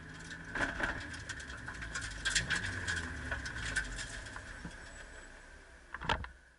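Car engine running low and steady, fading away, with scattered clicks and rattles and a short knock near the end.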